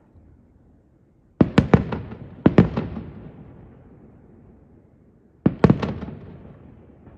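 Aerial fireworks shells bursting in three volleys of sharp bangs, about a second and a half in, a second later, and again near six seconds. Each volley trails off in a rolling echo.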